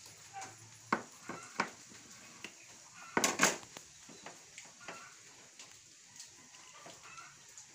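A metal spoon stirring a pot of thick binignit, clinking and scraping against the pot's rim and sides: a few sharp knocks about a second in, and the loudest cluster of clatter about three seconds in.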